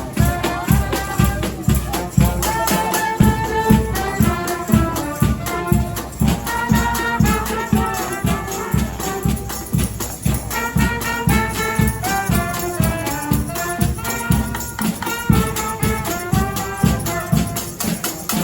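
Marching band playing live: wind and brass instruments carry a melody over a steady drum beat of about three hits a second.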